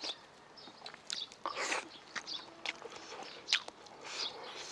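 A person chewing a mouthful of soft rolled omelette close to the microphone, with irregular wet mouth clicks and smacks.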